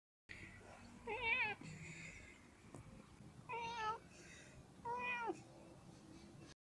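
Domestic cat meowing three times. The first call wavers in pitch, and the last falls away at its end.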